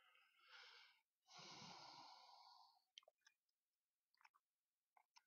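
Near silence, broken by a faint breath into the microphone about a second in, then a few faint clicks.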